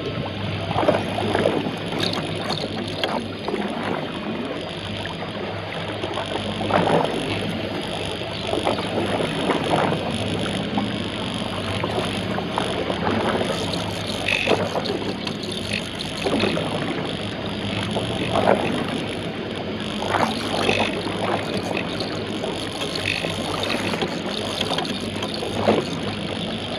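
Homemade radio-controlled fishing boat under way: its motor runs steadily while water churns in its wake and slaps against the hull, with a surge of splashing every couple of seconds.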